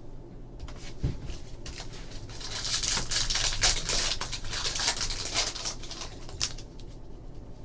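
A trading-card pack wrapper being torn open and crinkled, with cards being handled: a soft knock about a second in, then a few seconds of crackling, rustling and small clicks that fade near the end.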